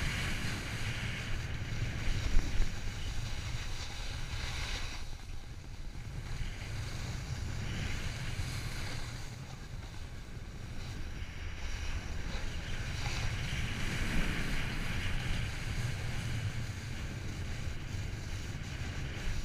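Wind buffeting the camera microphone as a snowboard slides and scrapes over packed snow, the hiss of the board swelling and fading with the turns. A couple of sharp knocks come about two seconds in.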